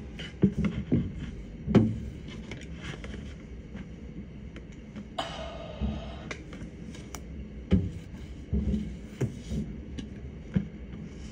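Distant aerial fireworks bursting, heard as about a dozen irregular thuds and pops heard from indoors.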